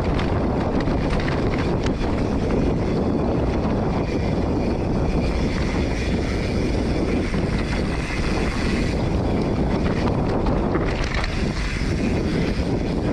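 Polygon Siskiu T7 full-suspension mountain bike riding a dirt singletrack: wind buffeting the microphone over steady tyre noise, with small clicks and rattles from the bike throughout.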